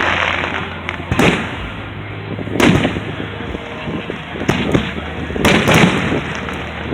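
Aerial fireworks shells bursting: sharp bangs roughly every second or two, with a quick cluster of reports a little past the middle, each trailing off in a rolling echo and crackle.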